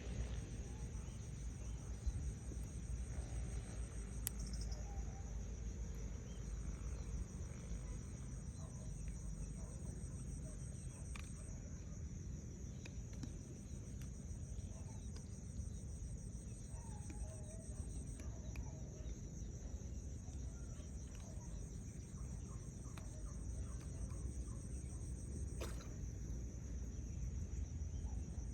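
Steady, high-pitched chorus of insects calling at dusk, over a low steady rumble, with a few faint short animal calls about two-thirds of the way through.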